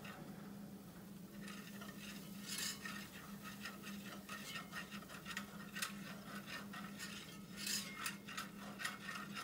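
Wire whisk scraping and clinking against a cast iron skillet in quick, uneven strokes, stirring flour into hot sausage grease to make a roux.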